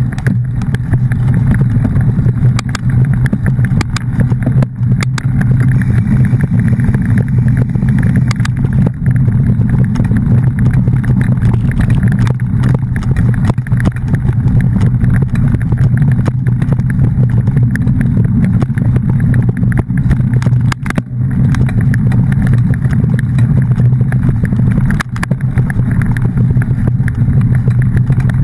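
A vehicle running steadily: a constant low engine drone with road noise and a few brief ticks.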